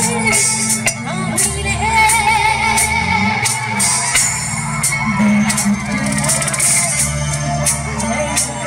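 A singer performing a Hindi film song over amplified backing music, with steady bass and a regular percussion beat.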